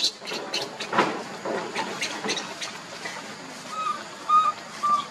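A baby macaque crying in short, high-pitched squeaks, with three short, clear, level-pitched calls near the end.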